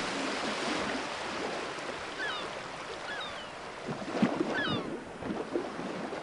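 Quiet ambience of sea water and small waves, with a few short high chirps in the middle.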